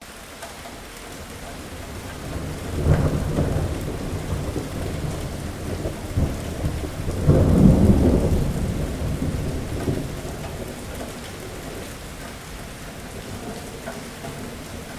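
Thunderstorm: steady heavy rain with two rolls of thunder, one about three seconds in and a louder, longer one at about seven to eight seconds, then rumbling away as the rain goes on.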